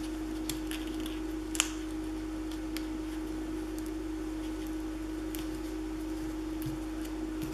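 Quiet handling of paper and tape on a scrapbook page: a few faint ticks and clicks, with one sharper click about one and a half seconds in, over a steady low hum.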